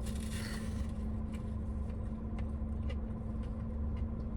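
Steady low vehicle hum, like a car running heard from inside the cabin, with a few faint light clicks.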